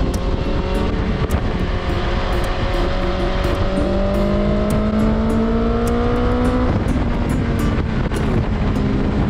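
A car engine accelerating hard, its pitch climbing steadily for several seconds, dropping at a gear change about two-thirds of the way through, then climbing again.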